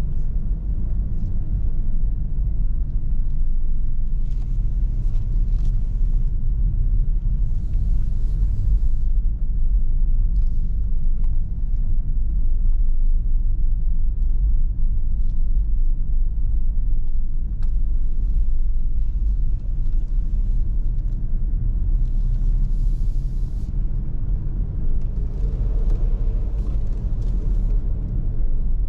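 Low, steady rumble of a BMW car driving slowly, heard from inside the cabin, with brief high hissing sounds now and then.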